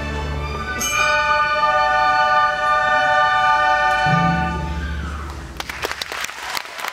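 Youth string orchestra of violins and cellos holding a long final chord, with a low note added about four seconds in; the chord dies away and applause breaks out near the end.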